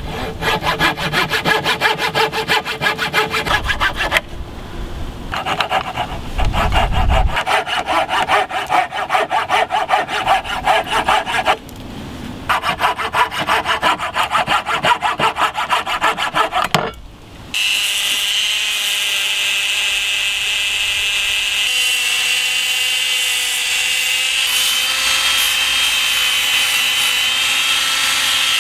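Coping saw cutting a wooden knife-handle block: quick back-and-forth strokes in three runs with short pauses between them. About two thirds of the way through, the sawing stops and a steady whine from a small power tool takes over.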